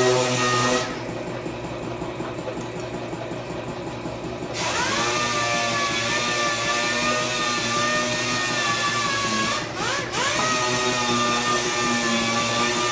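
Small power tool whining at a steady high speed. It stops about a second in, spins back up with a rising whine about four and a half seconds in, then cuts out briefly near ten seconds and spins up again.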